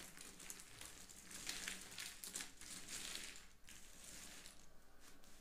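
Cardboard jigsaw puzzle pieces being broken apart and crumbled by hand on a wooden tabletop: a faint, dense crackle and clatter of many small pieces. It is busiest about a second and a half in and eases off after about three and a half seconds.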